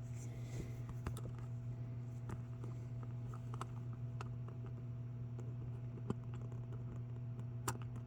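Light clicks and taps of small parts being handled on a toy trailer, scattered and irregular, with a sharper click about six seconds in, over a steady low hum.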